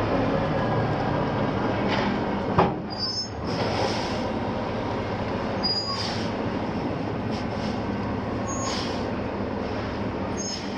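Heavy mobile crane's diesel engine running steadily as it manoeuvres, with a sharp clank about two and a half seconds in and several short high-pitched squeals.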